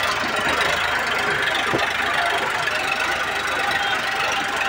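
Diesel tractor engines running steadily and hard under load: a John Deere 5310 pulling a stuck Powertrac Euro 50 tractor and its sand-laden trolley out of river sand.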